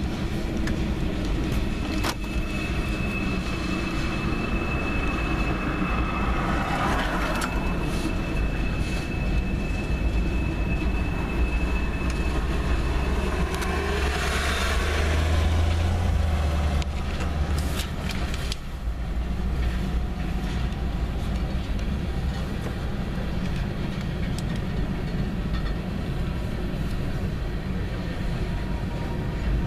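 Freight train of railroad tank cars rolling steadily past, a continuous rumble of wheels on rail, with a thin steady wheel squeal over roughly the first twelve seconds. About fourteen seconds in, a truck passes close by and the sound swells for a few seconds.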